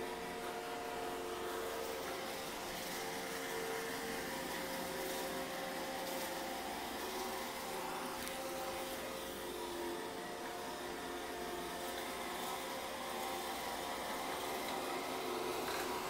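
iRobot Roomba i6+ robot vacuum running on a hardwood floor: a steady whirring hum from its suction motor and brushes, with a few tones that shift slightly in pitch as it moves.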